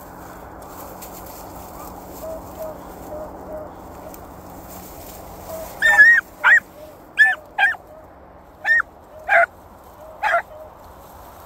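Beagle pup giving tongue on a rabbit's trail: seven short, high yips in the second half, each pitched and bending, after a few fainter, lower calls. The yipping is the sign she is on the rabbit's scent.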